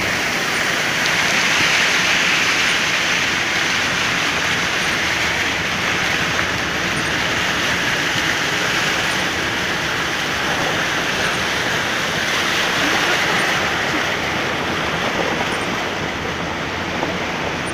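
Steady rush of water heard from inside a car driving through a flooded street, its tyres churning through the floodwater.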